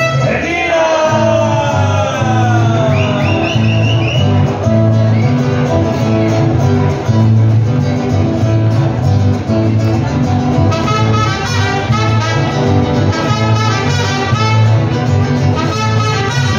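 Mariachi band playing an upbeat tune: strummed guitar chords over a pulsing bass line. A long falling slide sounds in the first few seconds, and a brighter, higher melody comes in about eleven seconds in.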